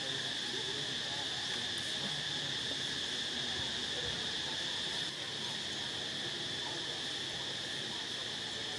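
Steady, high-pitched drone of forest insects, unbroken throughout and slightly quieter from about five seconds in.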